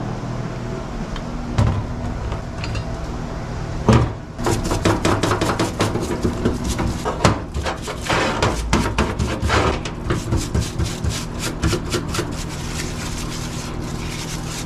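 Hand tools working on a car alternator during disassembly: a sharp knock about four seconds in, then a dense, irregular run of quick metallic clicks and taps, over a steady low hum.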